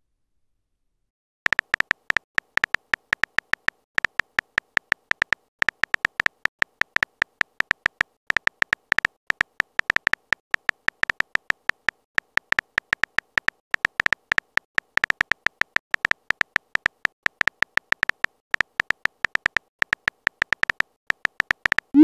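Texting-app keyboard typing sound effect: rapid, uneven key clicks, several a second in runs with short pauses, each a crisp tick with a high tone, starting about a second and a half in. Right at the end comes a short rising swoop as the message is sent.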